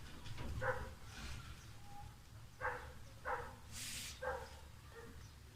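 A dog barking in the background, about five short separate barks spread across a few seconds, with a brief hiss about four seconds in.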